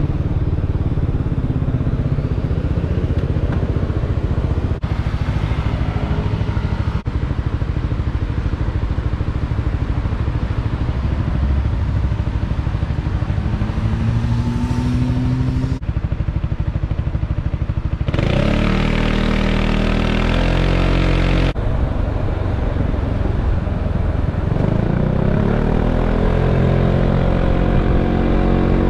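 Yamaha XMAX 300 scooter's single-cylinder engine running under way over a steady rumble of road noise; its note climbs as it accelerates about two-thirds of the way through, and again near the end.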